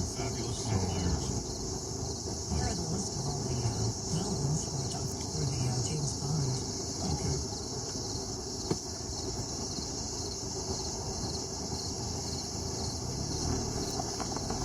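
Crickets chirping as a steady, high-pitched chorus, with a faint low voice murmuring beneath it in the first half.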